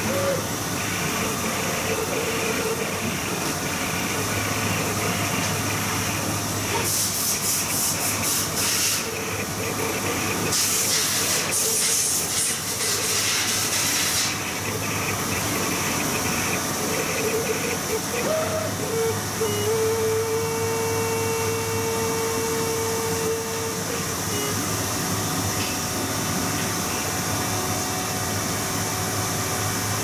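Flatbed cutting plotter running as it cuts printed overlay sheets: a steady machine hiss over a low hum, with louder hissing stretches about seven and eleven seconds in, and a steady tone for about four seconds near twenty seconds in.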